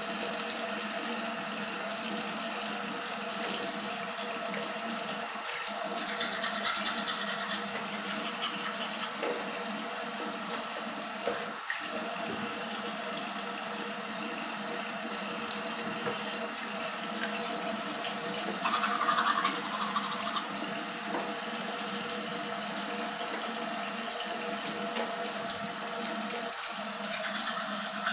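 Bathroom sink tap running steadily into the basin during toothbrushing and rinsing, briefly louder about 19 seconds in.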